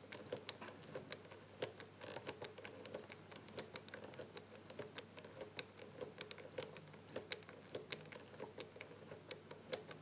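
Faint, irregular clicking of the number wheels on an ABUS Tresor Chain Catena Combo 1385 four-wheel combination bike lock as fingers turn them notch by notch, several clicks a second. The shackle is held under tension while the wheels are felt for resistance to decode the combination.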